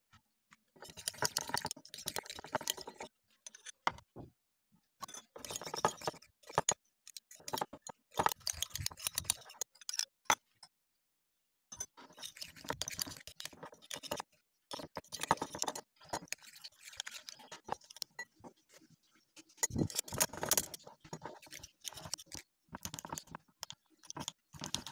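Metal spoon stirring a thick, sticky slime mixture in a glass bowl, scraping and clinking against the glass in irregular bursts with short pauses. Near the end, sticky squelching as the mixture is worked by hand.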